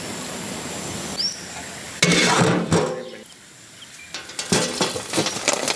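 Cooking over an open fire: a loud rush lasting about a second, then a run of metal clinks and clanks from pots and utensils. Small birds chirp now and then.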